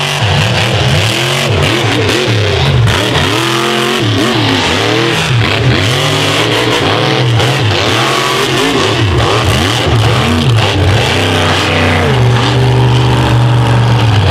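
Off-road mega truck's big high-horsepower engine revved hard again and again, its pitch climbing and dropping every second or so, then held at steadier revs for the last couple of seconds.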